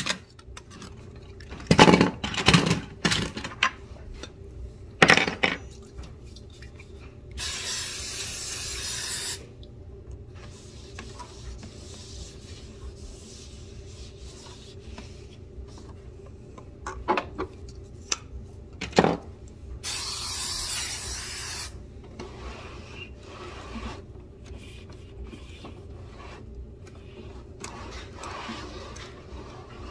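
An aerosol spray hisses twice, each about two seconds long, once about a quarter of the way in and again about two-thirds through. Between the sprays a cloth rubs over the furniture and a VCR's casing, and a few sharp knocks come near the start.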